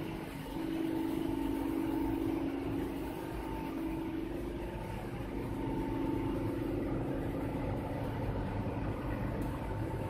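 Snack food extrusion production line machinery running, a steady mechanical hum with a few held tones.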